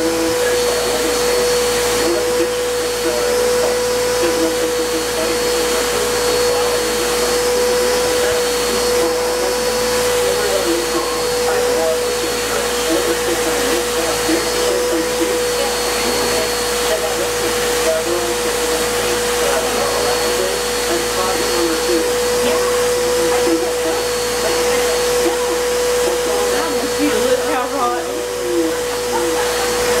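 Vacuum cleaner running steadily with a constant whine, its hose nozzle being run over a cat's fur.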